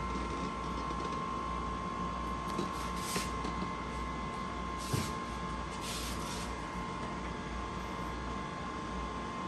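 Toshiba e-Studio 166 copier idling with a steady high whine over a low hum. A few short rustles and one soft knock come near the middle.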